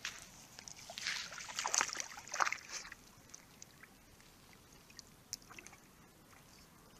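Small dog splashing into shallow lake water for about two seconds, then swimming, with only faint lapping and drips of water.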